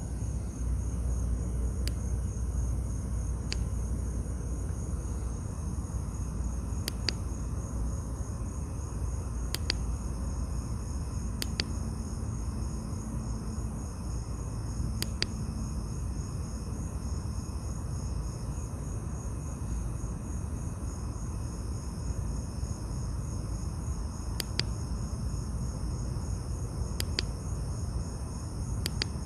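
Crickets chirping at night in a steady high-pitched trill, over a constant low rumble, with a few sharp faint clicks scattered through.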